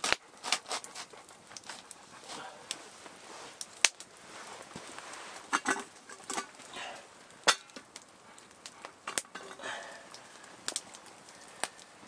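Scattered clanks and knocks of a cooking pot and its hanger being handled and lowered over a fire. Three sharper strikes stand out: about four seconds in, midway, and about nine seconds in.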